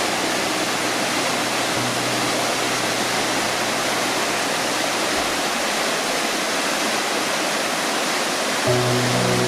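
Waterfall rushing with a steady, dense roar of falling water. Low sustained music notes sound under it at first, fade out, and come back louder near the end.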